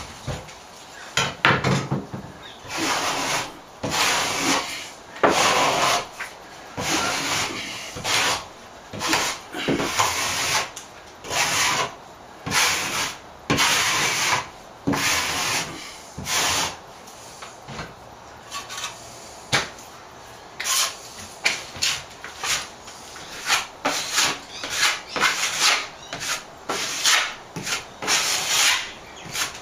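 Wide steel plastering blade scraped across a patched plaster ceiling in repeated short strokes, scraping back the set coat of compound. The strokes are about one a second at first, then shorter and quicker in the second half.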